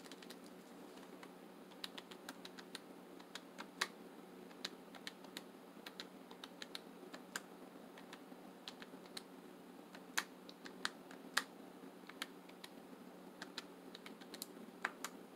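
Plastic keys of a desktop calculator being pressed one at a time, irregular light clicks, as a column of budget figures is added up.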